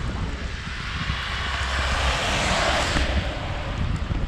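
Wind rumbling on the microphone of a camera on a moving bicycle, while a car passes on the wet road alongside: its tyre hiss swells to a peak about two and a half seconds in and then fades.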